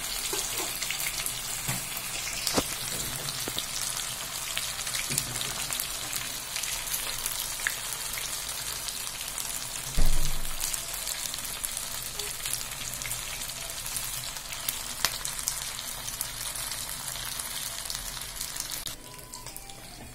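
Pomfret fish slices frying in hot oil in a pan: a steady crackling sizzle with small pops, and a single louder knock about halfway through. The sizzle turns quieter shortly before the end.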